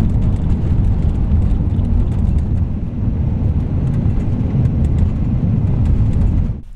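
First-generation Toyota Sequoia driving on a dirt road, heard from inside the cabin: a steady, loud rumble of tyres and wind, with faint scattered ticks.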